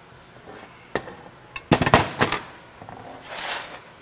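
Broken metal fragments of the V10's shattered oil pump gear clinking as they are set down on a metal workbench: one clink about a second in, then a quick cluster of clinks around two seconds in, followed by a brief scraping rustle.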